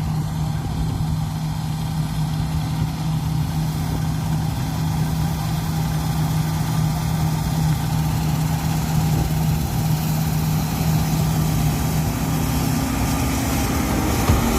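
John Deere T660 combine harvester running at a steady speed: a constant low engine drone under an even rush of machine noise.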